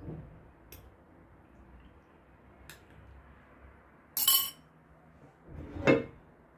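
Metal spoon clinking against a glass baking dish: a couple of light taps, then two louder, ringing clinks about four and six seconds in.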